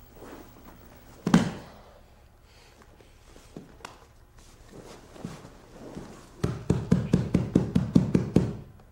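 Grapplers moving on a mat: one heavy thud about a second in, then near the end a quick run of about a dozen hand slaps, some six a second. The slaps are a tap-out, signalling submission to a shoulder lock.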